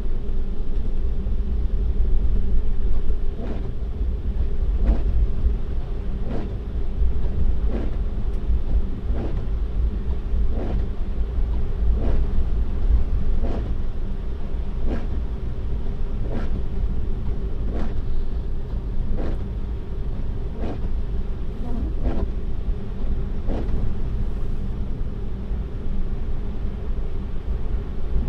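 Road and tyre rumble inside a Tesla's cabin as it drives on a snow-covered road, with a faint steady hum. A soft tick repeats evenly about every one and a half seconds.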